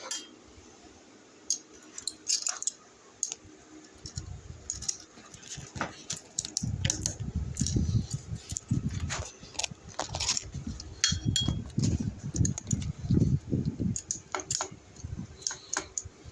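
Scattered metallic clicks and clinks of a hex-key tool turning a bolt out of a bicycle derailleur, with repeated low rumbling thumps through the middle stretch.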